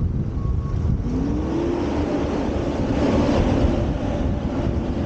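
An engine speeds up about a second in and then holds at a steady, higher speed, over a low rumble of wind on the microphone.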